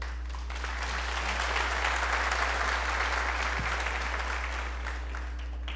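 Audience applauding, building up over the first second and then dying away near the end.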